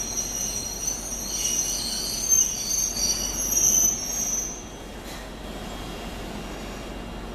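Izuhakone Railway 7000 series electric train's steel wheels squealing on the rails as it passes: several high-pitched tones over a low rumble, stopping about four and a half seconds in.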